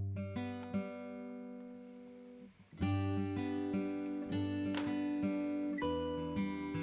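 Background music: acoustic guitar, picked and strummed, dying down about two and a half seconds in and coming back in with fuller strummed chords.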